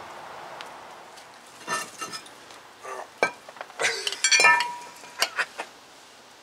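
Metal brake parts clinking and knocking together as they are handled and set down, a string of sharp clinks starting a couple of seconds in, one with a short ringing note.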